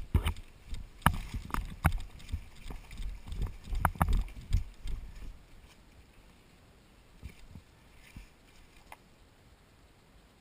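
A run of irregular sharp knocks and clicks with low thuds, dense for about five seconds, then a few scattered faint ones.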